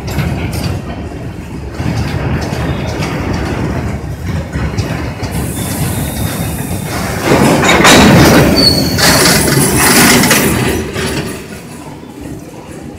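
Wheels of BTPN petroleum tank wagons rolling past on the rails, clattering over the rail joints. The clatter is loudest about halfway through, then fades as the brake van at the tail of the train goes by.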